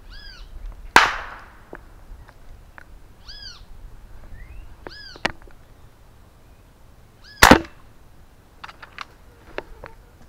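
Two sharp shots from 6.35 mm (.25-calibre) PCP air rifles, one about a second in and one about six seconds later, with a few short arching bird calls between them.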